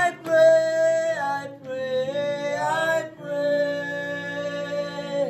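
Young men's voices singing a worship chant unaccompanied, in long held notes that slide from one pitch to the next.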